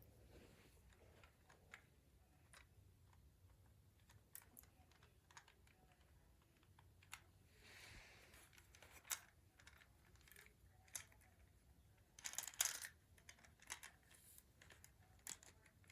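Faint, scattered clicks and taps of small plastic toy parts being handled and fitted together while reassembling a spring-loaded wing pack, with a louder flurry of clicks about twelve seconds in.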